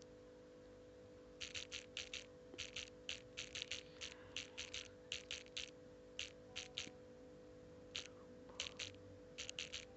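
Rapid, irregular clicks of a smartphone's on-screen keyboard as a chat message is typed, about two dozen keystrokes starting a second and a half in, over a faint steady hum.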